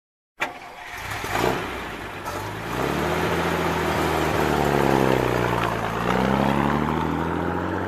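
Motor vehicle engine running and revving, starting abruptly about half a second in; its pitch sinks and then climbs again.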